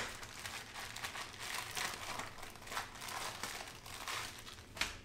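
Plastic packaging crinkling and rustling as it is handled: a clear plastic bag of assembly hardware and the wrapping around the assembly guide. It makes a run of irregular small crackles, with a sharper crackle near the end.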